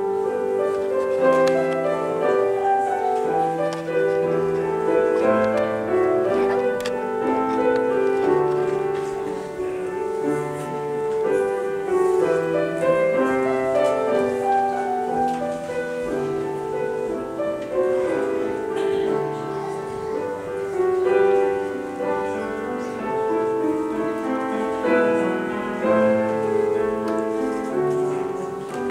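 Slow instrumental music played on a keyboard instrument: held chords and a melody that change about once a second.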